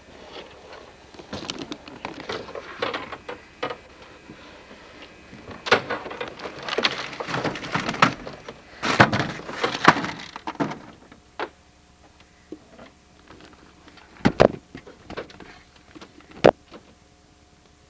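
Rustling and clattering of camping gear being handled and fitted together, then a few separate sharp knocks and clicks, two of them louder near the end.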